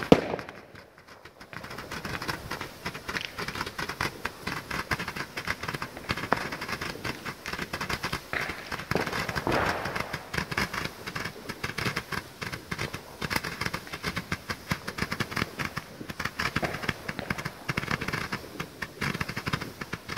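Consumer fireworks batteries firing: a loud bang right at the start, then after a short lull a continuous rapid crackle and popping of launched shots and bursting stars.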